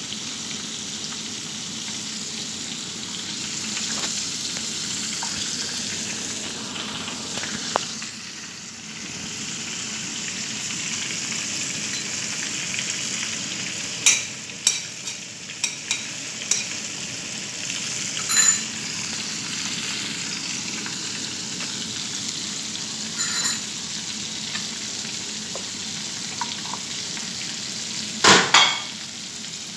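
Flour-dredged chicken pieces frying in a pan of hot oil: a steady bubbling hiss. A handful of sharp clicks come in the second half, the loudest just before the end.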